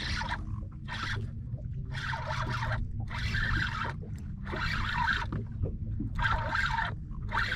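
Water lapping and slapping against a boat's hull in short swishes about once a second, over a low steady rumble.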